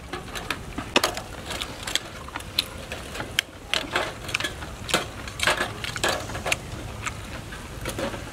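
Irregular sharp clicks and scrapes of a bamboo skewer and metal tongs against cooked snail shells as the meat is picked out.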